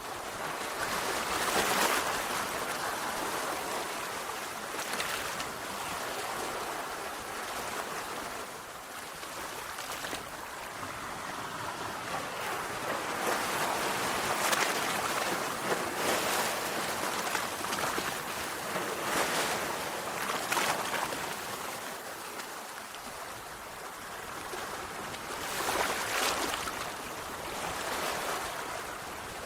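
Sea waves breaking and washing onto the shore: a steady hiss of surf that swells into louder breakers every few seconds.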